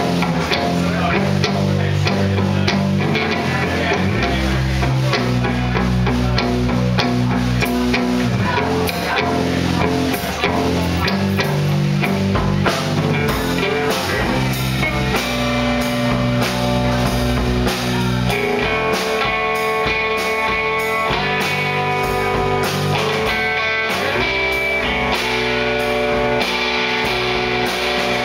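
A live rock band plays an instrumental passage on electric guitars and a drum kit, with steady drum hits throughout. Long held notes come in about two-thirds of the way through.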